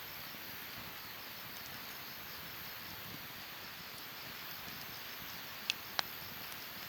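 Wood fire in a fire pit burning with a steady hiss and two sharp crackling pops close together near the end. Faint insect chirping repeats evenly behind it.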